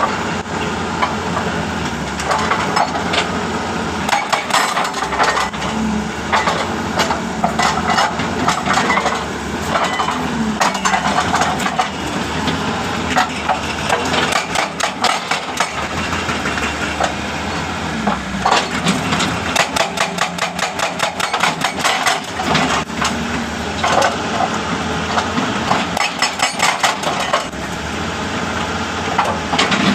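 Hitachi jackhammer rapidly striking rock in long runs with short pauses, over the steady running of an engine.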